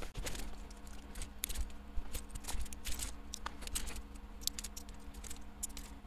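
Many small, irregular plastic clicks and ticks as the worn-out foam-and-foil capacitive pads are pulled off the key plungers of a Key Tronic keyboard, over a faint steady hum.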